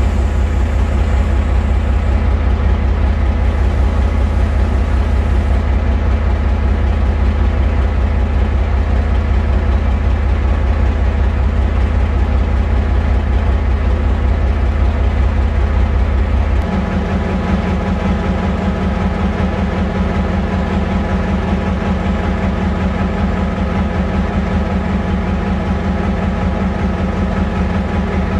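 GM diesel locomotive engine running steadily with a deep, even rumble. About two-thirds of the way through the engine note changes abruptly: the deepest rumble falls away and a higher hum comes up.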